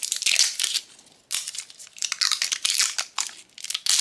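Tight shiny plastic wrapper being peeled and torn off a tin ornament ball, crinkling and crackling in several bursts with a short pause about a second in.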